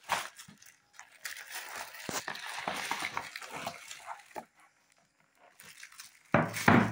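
Cardboard box and plastic wrapping being handled, rustling and crinkling with small knocks. Near the end comes one short, much louder sound.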